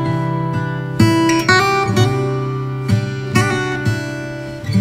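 Background music: acoustic guitar strumming chords, with a new strum roughly every second.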